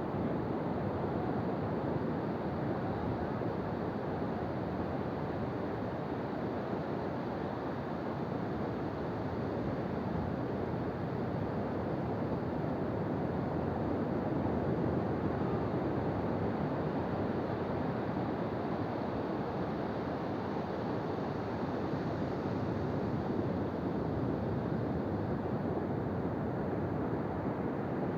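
Ocean waves washing onto a beach, a continuous rushing surf that swells a little louder about halfway through.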